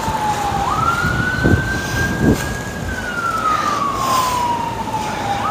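A siren wailing: a single tone slides slowly down in pitch, jumps quickly back up about a second in, then falls slowly again and jumps up once more near the end.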